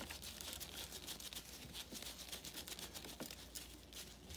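Faint, irregular clicks and scrapes of a screwdriver turning a small screw in the metal gear case of a 1959 10 hp Evinrude outboard's lower unit.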